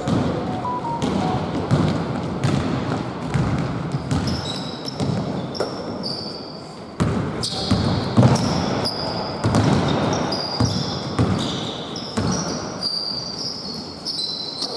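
Basketball play on a court: the ball bouncing repeatedly, with many short high-pitched squeaks of players' shoes on the floor from about four seconds in.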